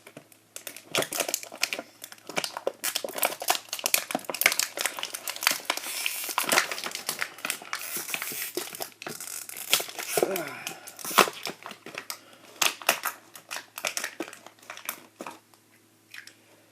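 Toy packaging being handled and crinkled in the hands, a long run of irregular crackles and small clicks, busiest midway.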